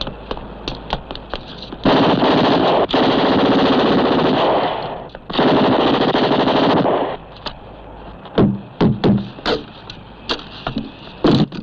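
Two long bursts of submachine-gun fire, the first about three seconds long and the second about two, preceded by quick running footsteps. A few scattered sharp bangs follow near the end.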